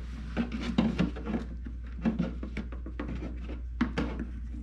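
Irregular plastic clicks and knocks as a replacement LED front corner light assembly is worked up into its housing in a C5 Corvette's front bumper.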